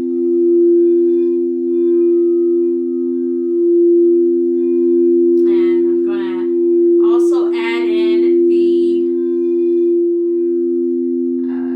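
Two crystal singing bowls ring together in a steady two-note drone, the C note of the root chakra and the F note of the heart chakra, slowly swelling and fading. A person's voice sounds briefly in the middle over the tones.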